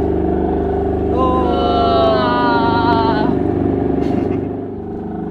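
Marina sewage pump-out pump running steadily as it sucks out a boat's holding tank through the hose. About a second in, a wavering, slowly falling whistle joins it for about two seconds.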